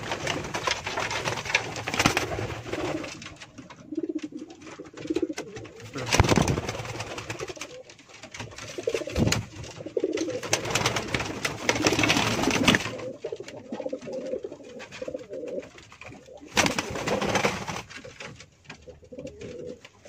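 Domestic pigeons cooing repeatedly in a small loft, broken by several loud bursts of rustling noise.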